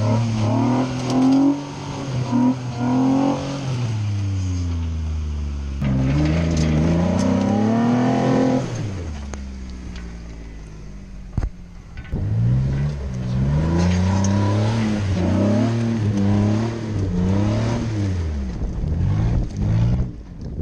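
Jeep Wrangler JK's V6 engine revving up and easing off in repeated surges as the Jeep crawls up a steep, rough slope, dropping to a lower run for a few seconds midway.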